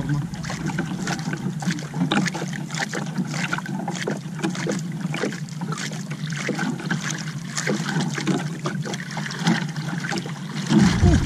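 Water lapping and splashing against the hull of a small outrigger canoe at sea, with many irregular small knocks and clicks over a steady low hum.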